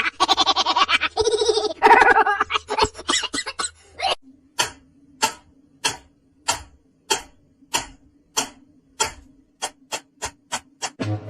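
A run of sharp, evenly spaced clicks or taps, at first about one and a half a second and quickening near the end, over a faint steady hum; before them, a few seconds of busy pitched sound, like a voice or an animal calling.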